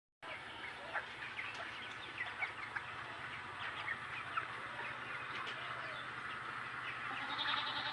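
A flock of chickens calling, with many short, overlapping high peeps and clucks over a low steady hum. A louder, higher call comes near the end.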